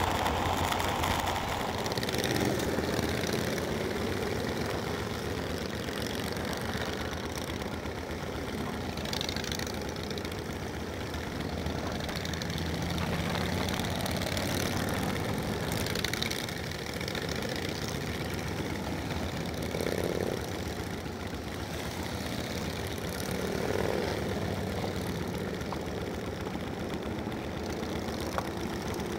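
A motorcycle engine running steadily under way, with wind rushing over the microphone.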